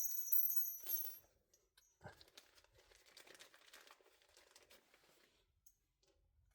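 Bolts and washers being handled while fitting a lower ball joint: a short burst of rustling and light metal clinking in the first second, then faint scattered clicks.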